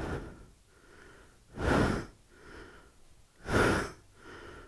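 A man breathing heavily right at a helmet microphone. There are three loud breaths about two seconds apart, with softer ones between.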